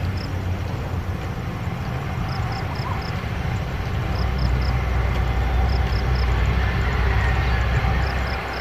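Jet engines of a Cebu Pacific Airbus airliner on the runway, heard as a steady rumble that swells from about four seconds in and eases near the end. Short high chirps come in runs of four or five.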